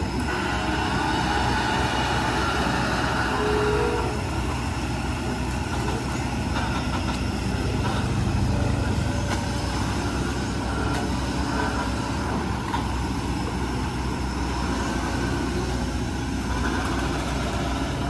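Kobelco hydraulic excavator's diesel engine running steadily, a continuous low rumble with some mechanical noise over it.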